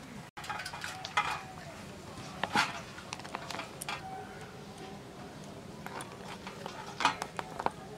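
Hands tying a bundle of bottle gourd leaves with thread on a steel plate: leaves crinkling, with light irregular clicks and clinks and a few sharper knocks, the strongest about a second in, at two and a half seconds and near the end.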